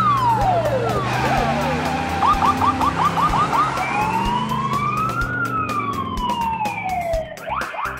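Police car siren wailing in long falling and rising sweeps, switching to a run of quick yelps about two seconds in and again near the end.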